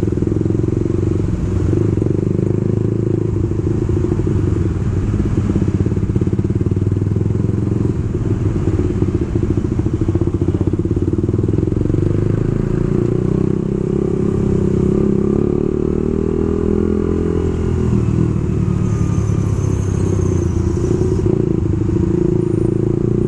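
Suzuki GSX-R150's single-cylinder engine running as the motorcycle is ridden. The engine note rises and falls in pitch about two-thirds of the way through.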